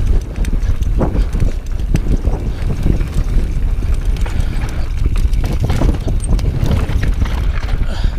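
Mountain bike riding fast down rocky singletrack: wind buffets the microphone in a heavy rumble while the tyres and frame rattle, with frequent clicks and knocks as the bike rolls over rock.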